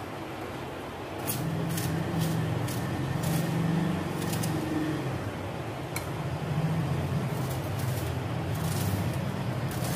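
A knife cutting vegetables on a plate, a scattering of light clicks and taps, over a low droning hum that sets in about a second in.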